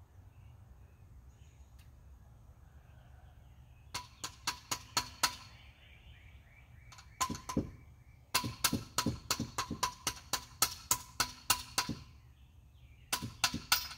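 Runs of sharp metallic taps with a short ring, about four to five a second, from metal struck on metal. Faint birdsong is heard in the quiet first few seconds.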